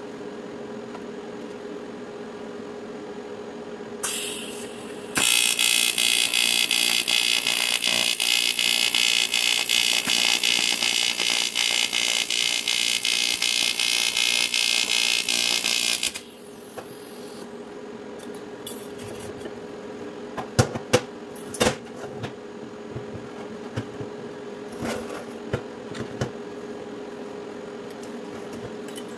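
TIG welding arc on aluminium: a short hiss about four seconds in, then a loud steady arc buzz for about eleven seconds that cuts off suddenly. Afterwards a wire brush scrubs the fresh weld, with scraping and a few sharp knocks, over a steady hum throughout.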